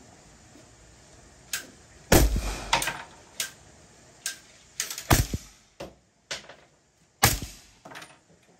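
Suppressed AR-style rifle firing about a dozen shots at an uneven pace, starting about a second and a half in; a few reports are much louder than the rest.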